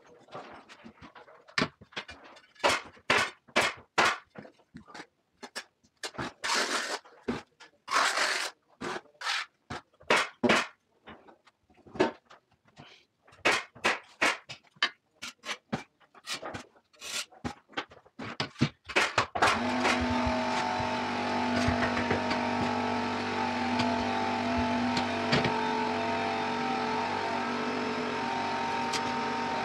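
Irregular sharp knocks and taps, at times several a second. About two-thirds of the way in, a steady machine noise with a hum starts, as of a motor running.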